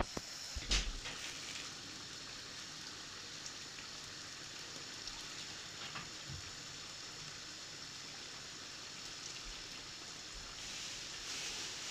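Steady hiss with a soft knock under a second in; the hiss grows a little louder near the end.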